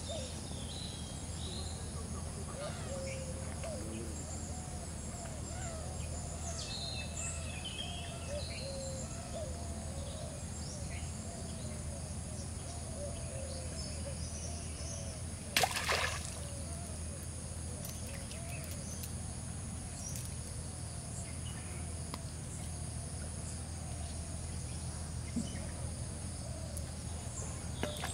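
Pond-side ambience: birds chirping over a steady low hum, with a single short splash in the water about halfway through.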